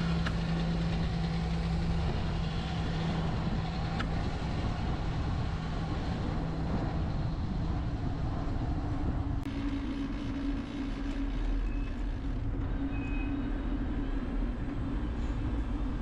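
Sound recorded by a bicycle dashcam while riding: steady wind and road noise. For the first several seconds a MAN Lion's City city bus hums steadily just ahead, then the hum fades.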